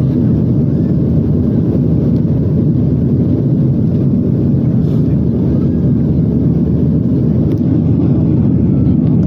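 Airplane taking off: a loud, steady low rumble.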